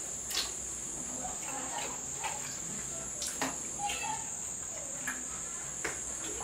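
Steady high-pitched cricket trilling, with scattered soft clicks and smacks of someone eating soup and swallow by hand.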